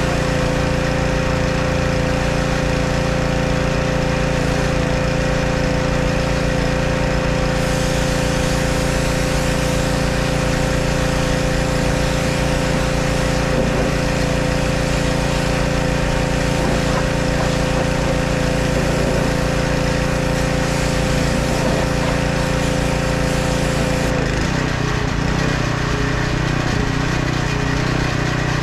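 Pressure washer's engine running steadily under the hiss of the water jet, its note changing near the end.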